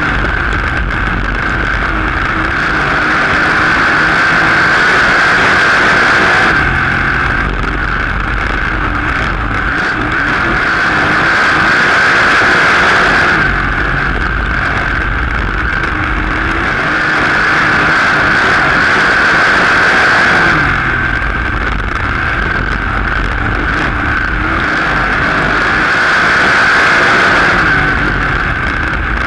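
Open-wheel dirt-track race car's engine at racing speed, heard from inside the car, swelling louder and easing off again about every seven seconds as it works down the straights and through the turns.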